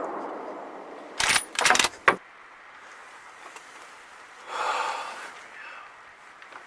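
The echo of a rifle shot rolls away. About a second in come three quick metallic clacks of the rifle's action being worked to chamber another round, and near the end a brief rustle.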